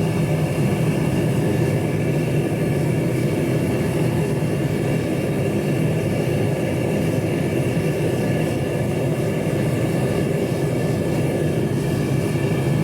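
Gas burner running steadily, heating a steel gear hob to red heat for hardening before it is quenched in oil.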